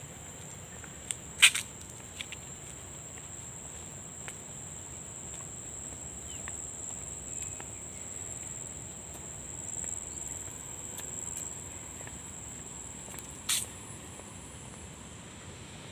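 Insects buzzing in a steady, high-pitched drone. A sharp click comes about a second and a half in, and another near the end.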